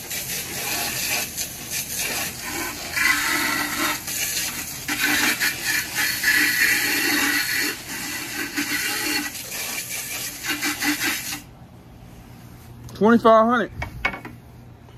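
Water spraying with a steady hiss that stops abruptly about eleven seconds in, followed by a short wavering vocal sound near the end.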